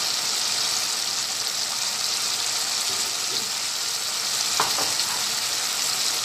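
Grated tomato and spice masala sizzling steadily in oil in a non-stick wok as it is cooked down, with one short click about four and a half seconds in.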